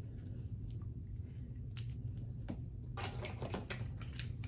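A hand spray bottle spritzing water and leave-in conditioner onto a wig's hair: a few short hissing sprays, with a quicker run of them about three seconds in.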